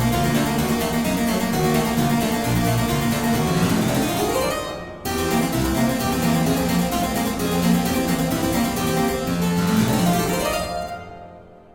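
Solo harpsichord music: quick plucked notes with a rising run about four seconds in. The sound breaks off abruptly and resumes about a second later, then dies away near the end.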